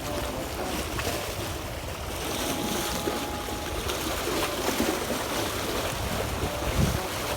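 Strong wind buffeting the microphone in an irregular low rumble, over the wash of waves against a rocky shore.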